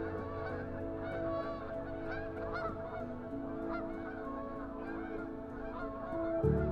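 A flock of Canada geese honking, with many short calls overlapping throughout, over soft sustained background music tones.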